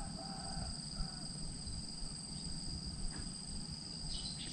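Insects chirring steadily in two high-pitched tones, over a low rumble.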